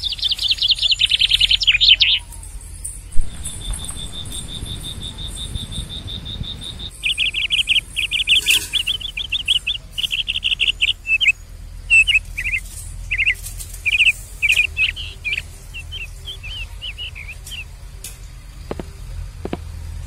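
Small birds chirping in quick runs of short high notes, in bursts with gaps between them. A steady high-pitched tone holds for about four seconds early on.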